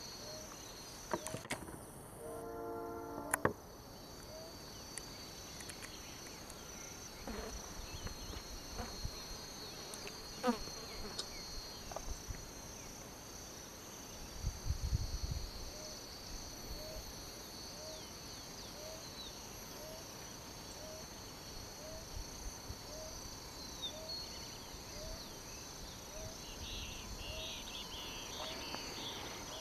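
Insects chirring steadily in two high-pitched bands, with a soft chirp repeating about once a second. A short pitched tone sounds about two to three seconds in.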